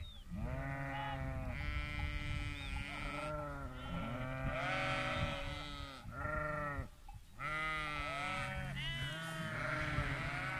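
A large flock of sheep bleating, many calls overlapping one after another with only brief lulls.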